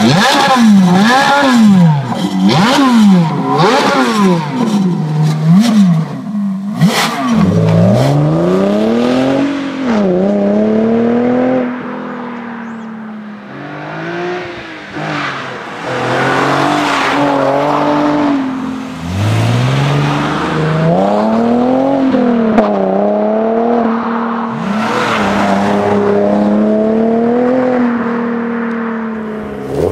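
Ferrari F430 V8 exhaust blipped to quick revs about once a second with the car standing still. About seven seconds in, a different car, an Infiniti G37S V6, takes over, accelerating hard with its pitch climbing and dropping at gear changes; it fades, then builds again and holds a steady high rev.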